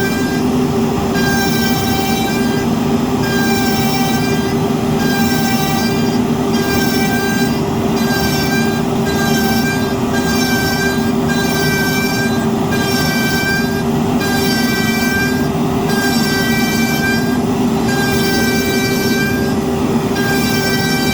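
Root CNC router cutting with a 6 mm up-down compound cutter, at a depth of cut deeper than the machine normally takes: a high cutting whine that breaks off briefly about once a second. Underneath, an industrial dust extractor drones steadily.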